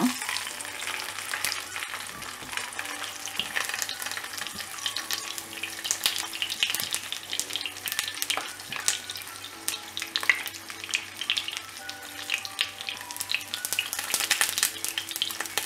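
Coconut oil sizzling and crackling on a hot flat tawa under a banana-leaf-wrapped pomfret being shallow-fried, with many small sharp pops of spattering oil.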